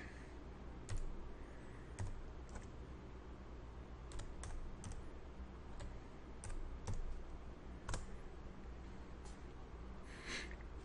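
Faint keystrokes on a computer keyboard: about ten separate key clicks, spaced unevenly and often a second apart, as a compass bearing is typed into a drafting program's prompt and entered.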